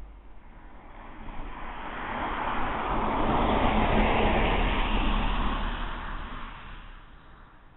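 A road vehicle passing by on the street, its tyre and engine noise swelling to a peak about halfway through and then fading away.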